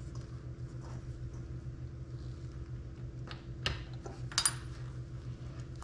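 A few light clicks and one short, bright scrape about two-thirds of the way in from hands working a throttle cable as its plastic sleeve is stripped, over a steady low hum.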